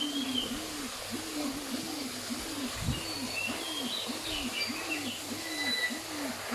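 A pigeon-family bird cooing in a steady run of low rising-and-falling notes, a little under two a second, with faint high chirps from other birds.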